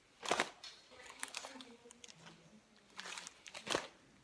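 Cardboard helmet rubbing and scraping as it is lifted and shifted on the wearer's head, in four short rustling bursts.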